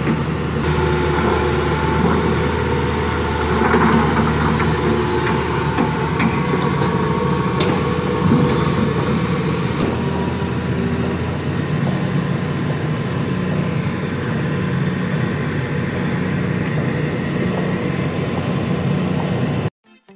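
Hitachi EX200 excavator's diesel engine running steadily under load as the boom and bucket push against the ground to reseat a thrown crawler track, with a thin steady whine and a few sharp metallic knocks. The sound cuts off abruptly near the end.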